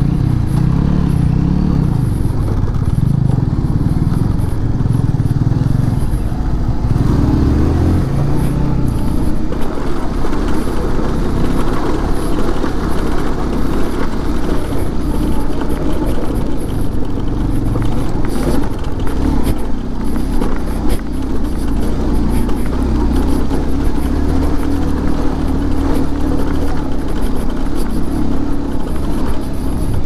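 Bajaj Pulsar 150 motorcycle engine running under load on a rough uphill track. Its note rises and falls with the throttle over the first several seconds, then runs steadier.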